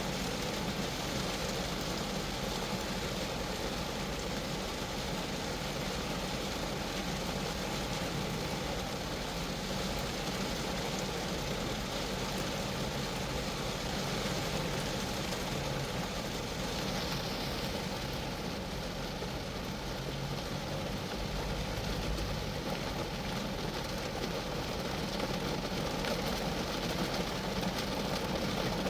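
Rain falling steadily on a Geo Metro car, drops hitting the roof and body in a dense, even wash with no breaks.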